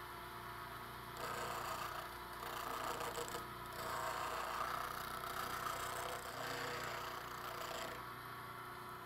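Bench grinder running, its wheel grinding the bevel of a steel chisel held with a light touch: a steady motor hum under a grinding hiss that swells and fades over several passes. This is heavy stock removal to re-form the whole bevel. Near the end the grinding stops and only the motor hum is left.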